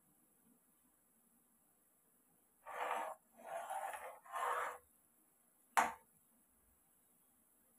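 A metal spoon stirring and scraping around a pan of bubbling syrup, three strokes in quick succession, followed a second later by a single sharp clink of the spoon against the pan.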